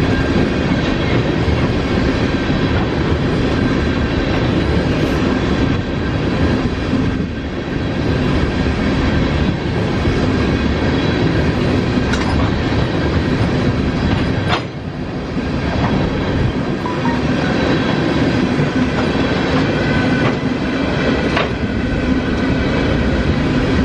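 Train cars rolling past on the rails: a steady rumble and clatter of wheels on track, with faint steady ringing tones, dipping briefly about a quarter and halfway through.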